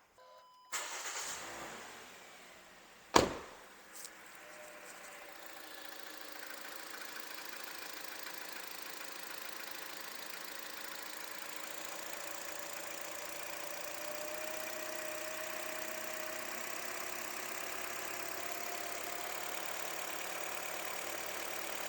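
Toyota Wish 1.8-litre petrol engine started, then idling steadily with no belt squeal, its new alternator pulley replacing a worn one. A single sharp knock sounds about three seconds in.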